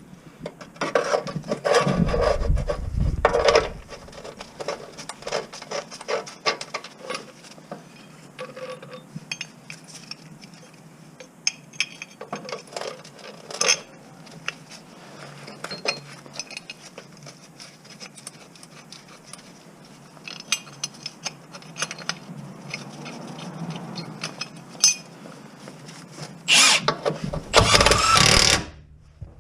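Hand tools and metal parts being handled during a van clutch job: scattered clinks, knocks and rubbing of metal on metal. There are two louder, heavier bursts of noise, one just after the start and one near the end.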